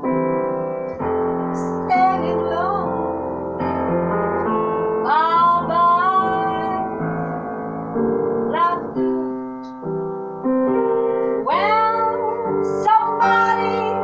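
A grand piano playing a chordal accompaniment, with a woman's voice singing over it in sliding notes at several points.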